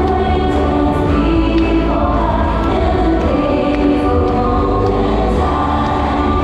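Show soundtrack music played loud over a hall sound system: choral singing with sustained held notes over a heavy bass.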